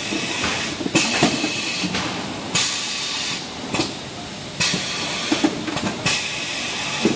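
Automatic PE film sleeve shrink wrapper cycling: its pneumatic cylinders let out a short hiss of air about every one and a half to two seconds, with clacks and knocks from the film sealing mechanism and the slat conveyor between them.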